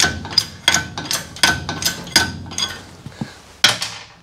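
Steel clinking and tapping: a run of sharp metal-on-metal knocks, about two or three a second, some ringing briefly, then a pause and one last knock near the end.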